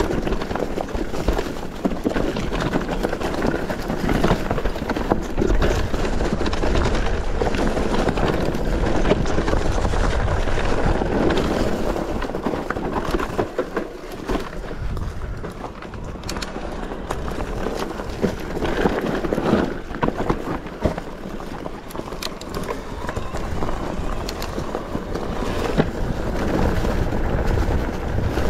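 Mountain bike descending a rough trail: tyres on loose stones and the bike rattling, with frequent sharp knocks over a steady noise.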